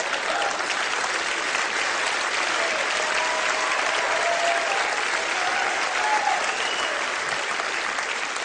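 Live comedy audience applauding steadily, with a few voices calling out in the middle.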